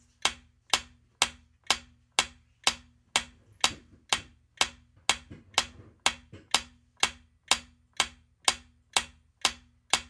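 Countdown-timer ticking sound effect: even, sharp clock-like ticks, about two a second.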